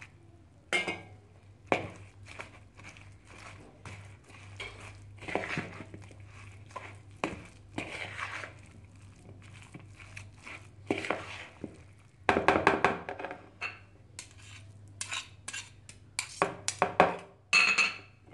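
A metal spoon mixing potato slices into a thick gram-flour batter in a plastic bowl, with irregular scrapes and clinks against the bowl. The scraping gets louder for a spell past the middle and again near the end.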